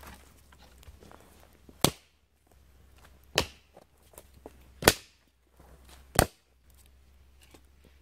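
Dry dead sticks being snapped by hand: four sharp cracks about a second and a half apart.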